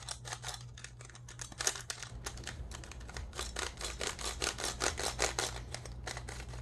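Plastic speed cube being turned quickly by hand, its layers clicking in a rapid, uneven string of sharp ticks. The cube is new and stiff, with lubricant just added and being worked in.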